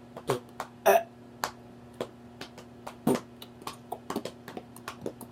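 A woman making a string of short, irregular mouth pops and clicks in a beatbox-like way, a few of them with a short grunt of voice.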